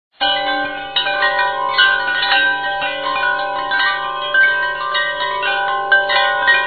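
Chimes ringing, many bright metal tones struck at irregular moments and overlapping as they ring on, beginning after a brief silence at the very start.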